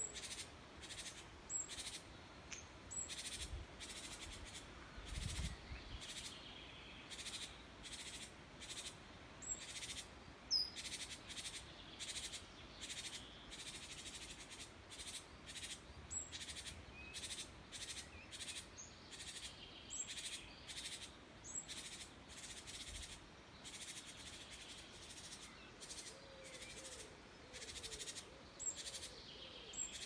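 A great tit calling near its nest: short, harsh calls repeated steadily about two to three times a second, with one louder call about ten seconds in. The recordist takes it for a parent scolding to drive her away from its chicks.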